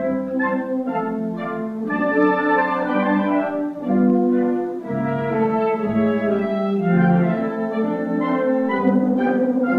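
A concert band of brass and woodwind instruments playing a piece, with sustained chords and a moving melody.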